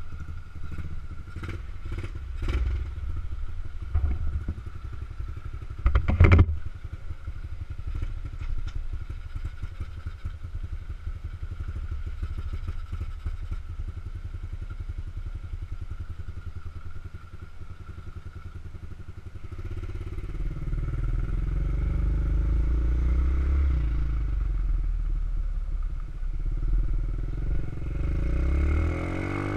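Honda CRF50's small single-cylinder four-stroke engine running at low speed, with several sharp clicks and knocks in the first few seconds, the loudest about six seconds in. About twenty seconds in the engine gets louder as the bike speeds up.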